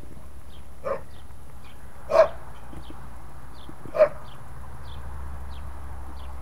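A dog barks three times, short and spaced out: once about a second in, again near two seconds, and once more at four seconds, the first bark quieter than the other two. Faint high chirps repeat in the background, about twice a second.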